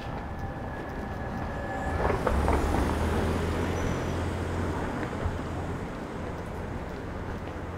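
A car passes close by and drives on ahead down the street; its engine and tyre noise swell about two seconds in and then fade away.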